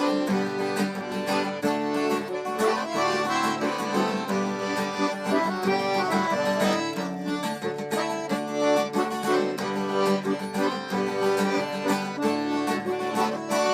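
Accordion playing a lively instrumental forró intro over strummed guitar, with a steady beat.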